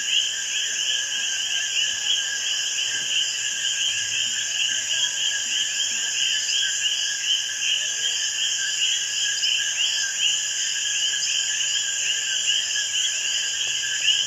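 Night chorus of many Puerto Rican coquí frogs calling their repeated two-note "co-kee", the short notes overlapping continuously. A steady high insect buzz, cicadas among them, runs underneath.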